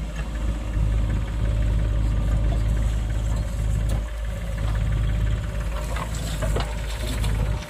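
JCB 3DX backhoe loader's diesel engine running steadily under load as the backhoe works, easing briefly about four seconds in. Near the end, a bucket of soil pours into the tractor trailer with a short rattle.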